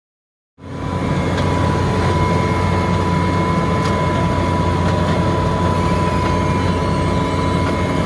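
Vögele Super 1800-2 asphalt paver's Perkins diesel engine running steadily, with a constant high whine over the low engine hum. It cuts in abruptly about half a second in.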